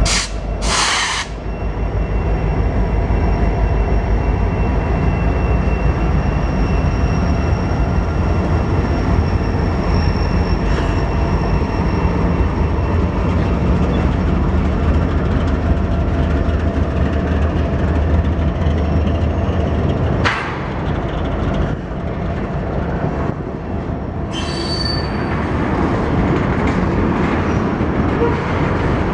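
Freight train's cars, mostly tank cars, rolling past close by with a loud steady rumble of wheels on rail and a thin, high wheel squeal over it. A sharp metallic clang comes about a second in, the low rumble lightens about twenty seconds in, and a brief sharper squeal follows a few seconds later.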